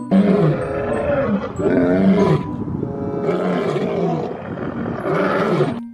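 Two male lions roaring, a run of long deep roars one after another that cuts off abruptly just before the end.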